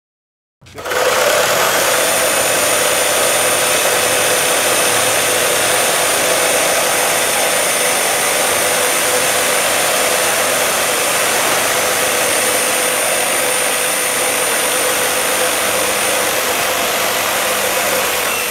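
Cordless reciprocating saws cutting through doubled-up 2x6 lumber: a steady motor whine over the rasp of the blade, starting about half a second in and holding without a break.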